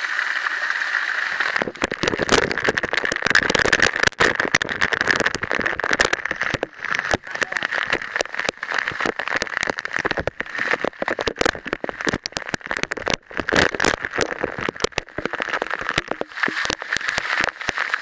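Waterfall water pouring directly onto the camera, splattering on the microphone in a dense, irregular crackle, over the steady rush of the falls. The splatter starts about a second and a half in and eases back to the plain rush just before the end.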